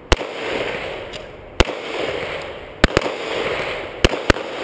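Pistol shots at a bowling-pin match: about six sharp bangs at uneven spacing, two pairs fired in quick succession, each followed by a short rolling echo.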